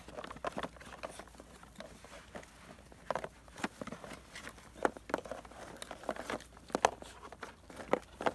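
Labrador puppies licking and nosing out nearly empty plastic food tubs in a cardboard divider box: irregular clicks, taps and knocks of muzzles and tongues against plastic and cardboard, with light rustling of paws on dry grass.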